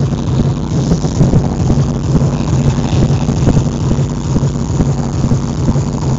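Loud, bass-heavy dance music from a DJ's sound system, heard as a dense, steady wash.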